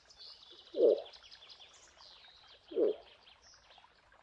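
Two short, deep grunts from a moose, about two seconds apart, over birds chirping in the background.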